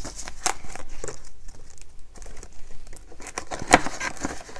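Paper bills rustling and crinkling as a stack of cash is handled and tucked into a paper budget envelope in a ring binder, with a sharper click about three-quarters of the way through.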